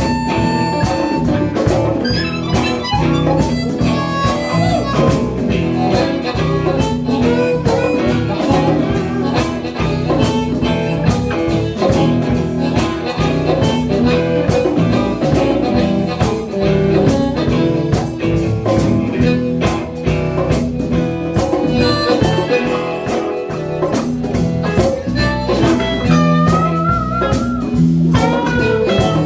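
Live blues band playing an instrumental stretch, with harmonica and guitar over a steady drum beat.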